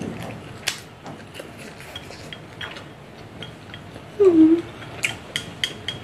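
Chopsticks clicking and tapping against a small ceramic rice bowl while eating, the taps coming quickly near the end. About four seconds in comes a short hum that falls in pitch, the loudest sound here.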